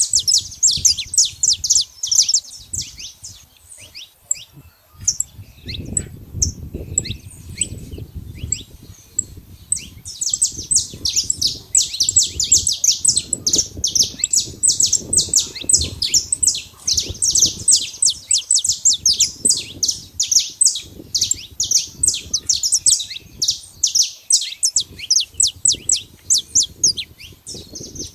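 Saffron finch singing: fast runs of short, sharp, high chips and trills. It thins to scattered notes for several seconds, then sings densely again from about ten seconds in.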